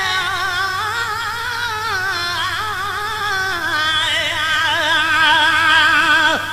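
A man singing a Sindhi devotional qaseeda, holding long melismatic notes with heavy vibrato. The pitch sinks slowly and steps lower about four seconds in, then the held note falls away in a quick downward slide at the end.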